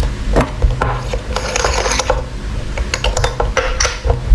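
Michael Kors MK8295 wristwatch case being worked open by hand: a scatter of small metal clicks and two short stretches of scraping, metal on metal.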